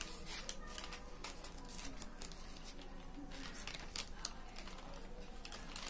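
Paper pages rustling and being flicked over, an irregular run of quick crisp flicks and crinkles.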